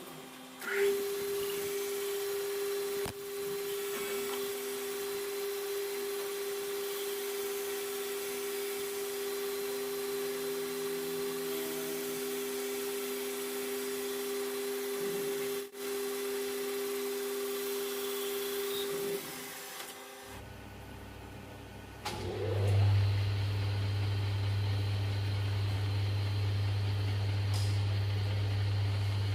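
Workshop machines running: one machine with a steady mid-pitched tone and a hiss for most of the first twenty seconds. After a brief pause, a second machine with a deep, steady hum starts up and rises to speed, then runs until it stops at the end.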